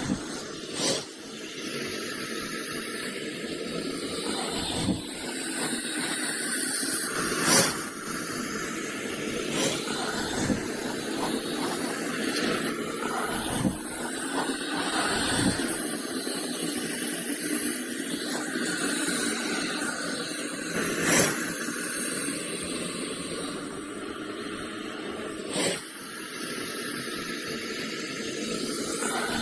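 Anaconda hissing: a long, continuous hiss that swells and eases, broken by a few sharp knocks.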